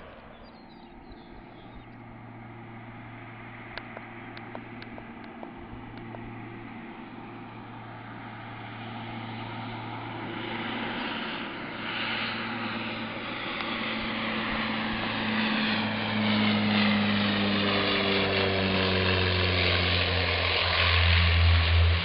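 Twin-engine turboprop airliner on approach to land, its propeller and engine drone growing steadily louder as it nears, with the pitch sliding down as it passes close; loudest just at touchdown near the end.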